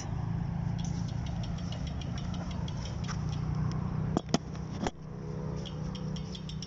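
A steady low engine-like hum, with fast faint high ticking and three sharp clicks a little past four seconds in.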